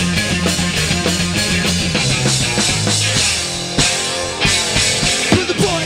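Rock band playing live: electric guitars over a drum kit, in a loud, steady punk-rock groove.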